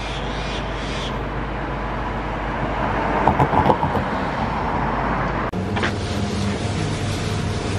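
Street traffic ambience, with a car passing close about three to four seconds in. After a sudden cut, a steady background with a low hum.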